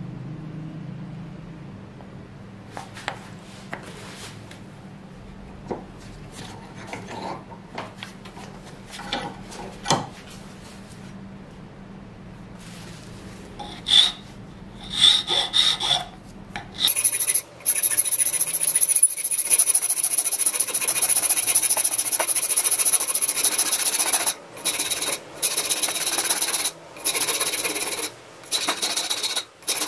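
Flat hand file rasping back and forth across a wooden handle scale clamped in a steel bench vise. The first half is quieter, with a low hum and scattered light knocks. From about halfway the filing strokes are loud and continuous, broken by a few short pauses near the end.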